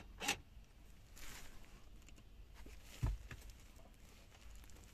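A couple of faint clicks, then a soft rustle and a dull thump about three seconds in, over a low steady hum.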